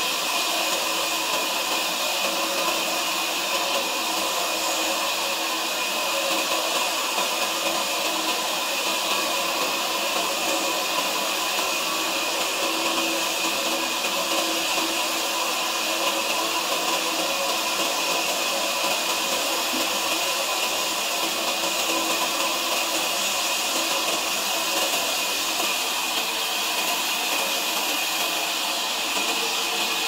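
Sawmill machinery running steadily: a constant high whirring hiss with faint steady hum tones underneath, holding an even level with no breaks or changes in pitch.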